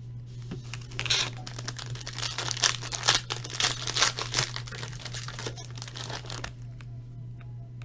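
Plastic wrapping on a box of trading cards crinkling and tearing as it is opened, a dense crackle lasting about five seconds.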